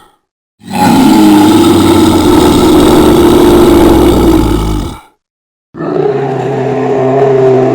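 Two loud bear roars: a long one of about four seconds, then after a short silence a second, shorter one of about two seconds.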